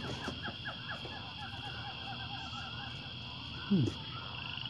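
Outdoor birdsong: a quick series of short chirping notes for the first couple of seconds over a steady high insect drone. A brief, louder falling call or voice sounds about three-quarters through.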